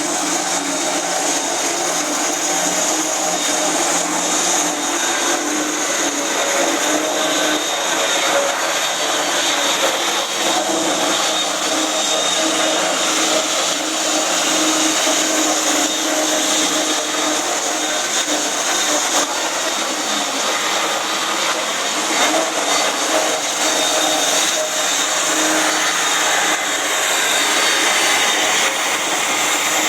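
Concrete grinder running steadily while grinding concrete: a loud, constant machine noise over a steady motor hum.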